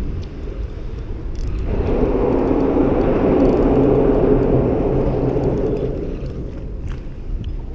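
A vehicle crossing the steel-grid bridge deck overhead: a humming whir that swells about two seconds in and fades after about six seconds, over a steady low rumble of wind on the microphone.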